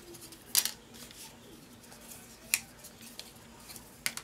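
Wooden jumbo craft sticks being handled and set down on a paper-covered table: a few sharp wooden clacks, the loudest about half a second in and others near two and a half and four seconds in.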